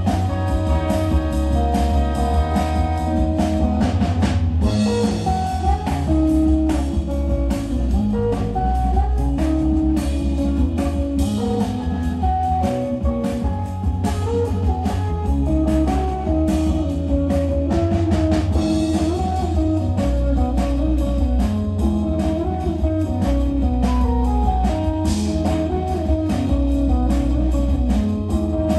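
Small live band playing through PA speakers: guitar over a steady bass line and a drum kit keeping a regular beat.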